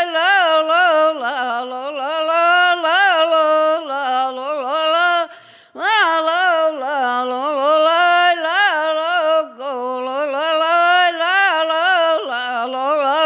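Sámi joik sung by a single unaccompanied voice on wordless syllables. The pitch wavers and turns in quick ornaments, and there is one short breath break about five seconds in.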